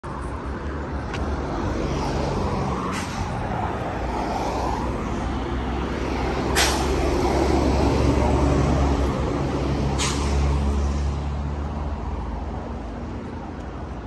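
Road traffic on a roadside with a heavy truck, a concrete mixer truck, going by; its engine swells to the loudest point about eight seconds in and then fades. Two sharp clicks stand out, one a little before the peak and one after it.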